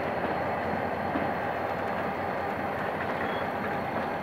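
Passenger train coaches rolling past on the rails: a steady rumble of wheels on track.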